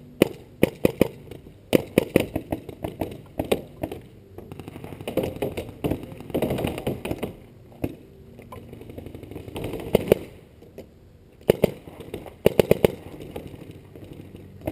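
Paintball marker firing in several quick strings of sharp shots, about six a second, with pauses between the strings.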